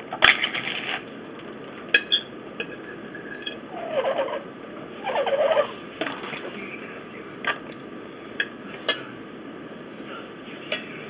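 A metal fork scraping and clinking against a dinner plate while eating. There is a louder scrape just after the start and single sharp clinks scattered through the rest. Two short hum-like vocal sounds come about four and five seconds in.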